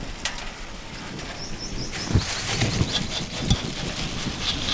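Birds chirping in the background, a quick run of short high chirps about a second and a half in and more thin calls later, over an outdoor haze with a few soft low thumps.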